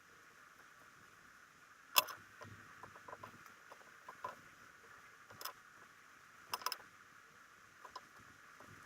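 Faint scattered clicks and small scrapes of a toothbrush and fingers working grit out of a rim-brake pad, over a steady faint hiss. The sharpest click comes about two seconds in.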